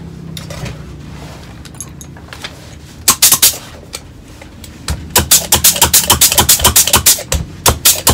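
Compressed-air gun on a hose firing short, sharp blasts of air: a few about three seconds in, then a rapid string of them, several a second, from about five seconds in.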